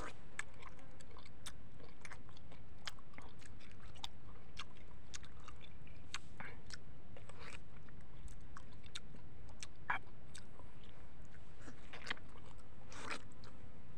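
Person eating a ripe mango, biting and chewing the soft flesh, with many short wet mouth clicks and smacks scattered throughout.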